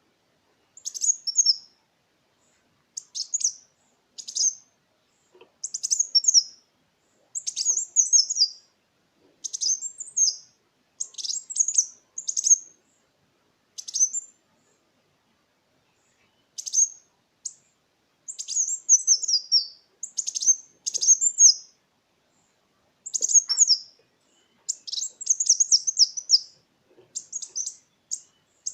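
Kolibri wulung sunbird singing: short, high-pitched twittering phrases repeated every second or two, with a pause of a couple of seconds about halfway through.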